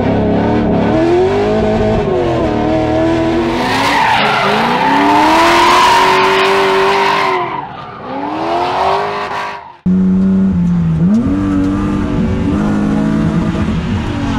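LS1 V8 in a Nissan 240SX S13 drift car, revving up and down through a drift, with the tires squealing loudly in the middle stretch. The sound cuts off abruptly about two-thirds of the way in, then the engine returns, heard from inside the cabin.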